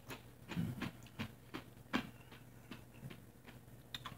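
Someone chewing a crunchy tortilla chip topped with hot sauce: quiet, irregular crunches and clicks, over a steady low hum.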